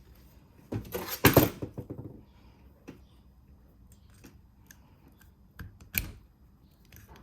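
Long pliers gripping and turning the seized handbrake piston in a Toyota Starlet rear brake caliper to loosen it past its two seals. There is a burst of metal scraping and rattling about a second in, then scattered metal clicks, with a sharp click near the end.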